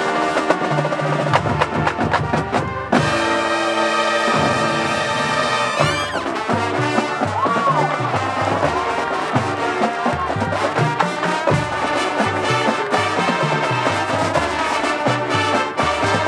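Marching band playing live: full brass chords over a steady, pulsing low bass line and percussion. The band cuts off briefly just before three seconds in, then comes back in, with a rising glide in the high brass about six seconds in.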